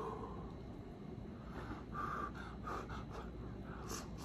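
A man breathing audibly through his nose while eating, then biting into a piece of crispy battered deep-fried seafood near the end, with a short crunch.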